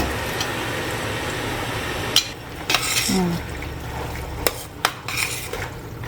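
A metal utensil clinking and scraping against a cooking pot while food is stirred, a scattered series of sharp clanks starting about two seconds in. Before the clanks there is a steady hiss.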